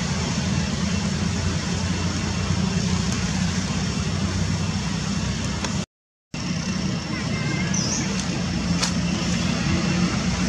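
Steady rushing background noise with a low hum underneath, which cuts out completely for about half a second just past the middle.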